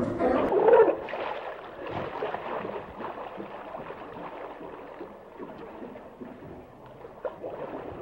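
An African penguin's braying call cuts off about a second in, followed by quieter water lapping and gurgling around a hippopotamus wallowing low in the water.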